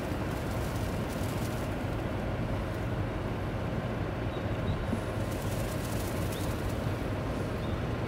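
Steady low rumble of outdoor background noise, even throughout, with no distinct event.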